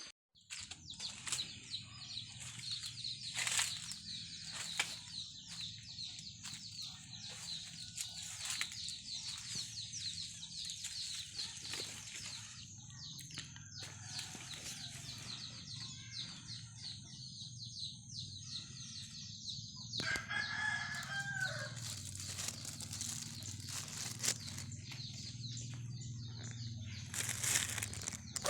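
Farmyard chickens with a rooster crowing once about twenty seconds in, over dense, fast high-pitched chirping in the first half and a steady low hum.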